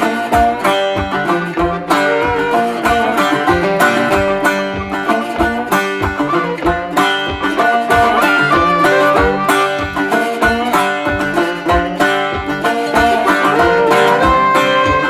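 Background music: a bluegrass-style tune led by a plucked banjo, over a steady beat.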